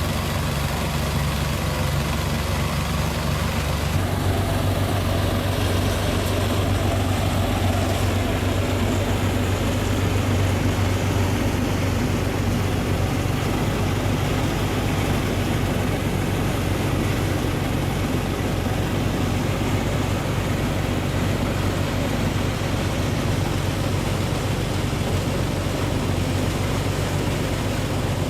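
Engine-driven rice thresher running steadily: a low engine hum under a broad rushing noise as rice stalks are threshed, the sound thickening about four seconds in.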